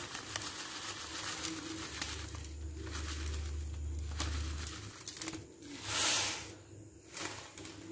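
Light rustling and faint knocks of bread crumbs being added to a plastic food-processor bowl of raw chicken, with a louder brief hiss about six seconds in.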